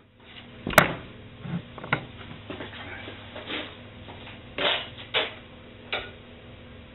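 Irregular clicks and metallic knocks from a homemade compressed-air engine being handled by hand, the sharpest about a second in, over a steady low hum.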